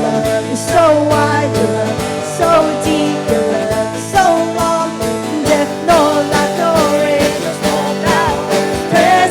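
Worship band music with a steady drum beat, sustained chords and a melody line that bends and slides in pitch.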